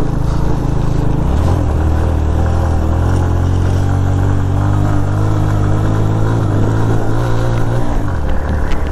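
Suzuki GS150 motorcycle's single-cylinder engine labouring at walking pace up a steep loose-stone climb, held at about 4–5 thousand rpm. Its pitch rises about a second in, holds, and drops back near the end.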